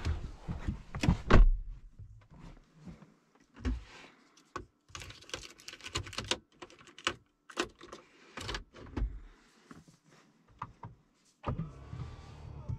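Someone climbing into a car's driver seat: rustling and knocks, and a heavy thump about a second and a half in, typical of the door being pulled shut. Scattered clicks and handling noises follow. Near the end a steady low hum starts.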